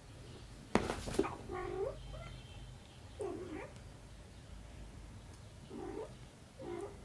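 A sharp knock a little under a second in, the loudest sound, then a kitten mewing four times in short calls.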